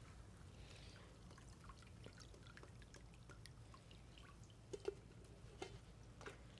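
Near silence with faint scattered crackles and ticks, and a few sharper clicks near the end.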